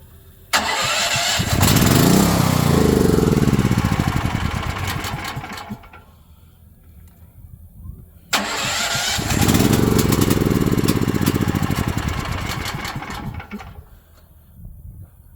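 DuroMax XP13000HX generator engine being cranked by its electric starter with the choke closed, in two long attempts of about five seconds each. Each crank starts abruptly and then stops, and the engine does not keep running.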